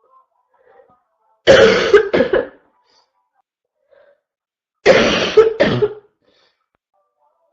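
A person's barking cough: two coughing fits about three seconds apart, each a longer harsh cough followed at once by a shorter one.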